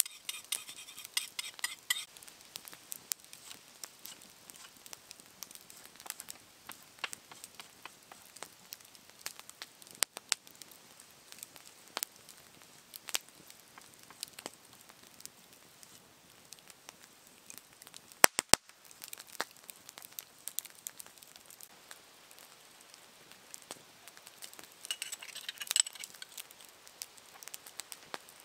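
Small wood campfire burning down toward coals, crackling with scattered sharp pops; a quick cluster of louder pops comes a little past the middle.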